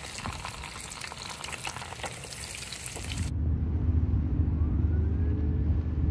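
Battered striped bass frying in oil in a cast-iron pan, a dense crackling sizzle that cuts off about three seconds in. A louder low rumble with a steady low drone follows, and through it a faint wail rises slowly and then falls.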